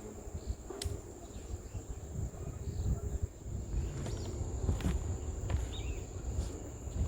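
Insects, cricket-like, keeping up a steady high-pitched drone, over an uneven low rumble, with a few sharp clicks.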